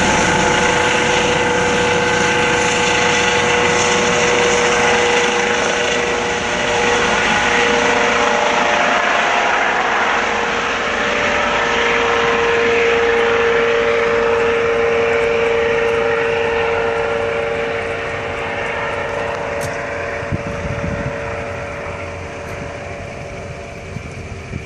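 Air ambulance helicopter flying away after takeoff: a steady engine whine and rotor noise that slowly fade over the last several seconds as it recedes.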